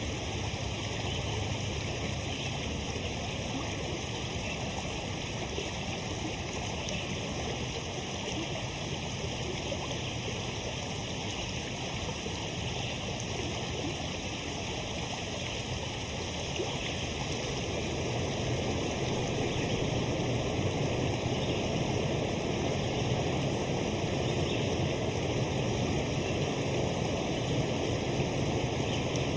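Water rushing and splashing steadily in a stream, growing a little louder just past the middle.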